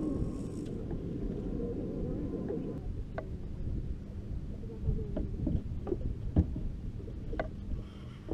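Low steady rumble of water and air around an anchored fishing boat, with faint indistinct voices in the first three seconds and scattered sharp knocks and clicks after that.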